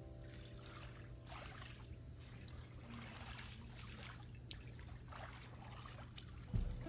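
Faint water sloshing and trickling as a person wades through a swimming pool, sweeping his arms through the water, over a steady low hum. Background music comes in loudly near the end.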